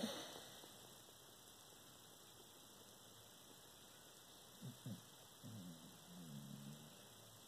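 A sleeping corgi makes faint sounds in its sleep while dreaming: two short low ones a little past the middle, then a longer wavering one, over a steady low hum. A louder sound fades out at the very start.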